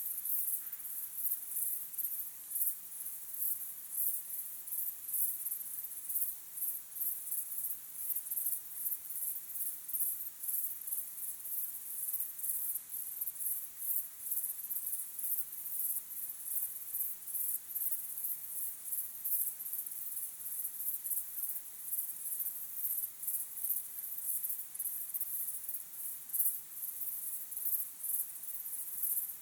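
Crickets chirping in a continuous, rapid, high-pitched chorus.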